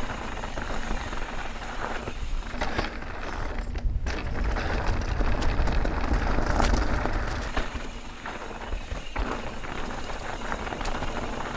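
Mountain bike riding down a dirt singletrack: tyres rolling and crunching over dirt and roots, with scattered clicks and rattles from the bike and a low wind rumble on the microphone.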